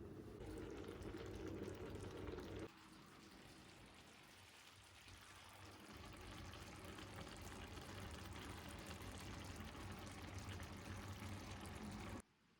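Faint steady hiss of liquid being poured, dropping quieter about two and a half seconds in, building again, then cutting off abruptly near the end.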